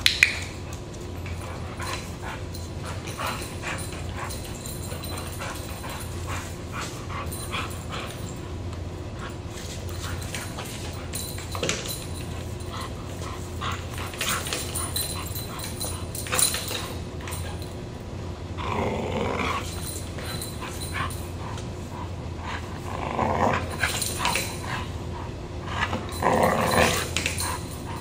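Dog growling in rough bouts while tugging on a rope toy, the growls coming mostly in the second half. A sharp knock right at the start.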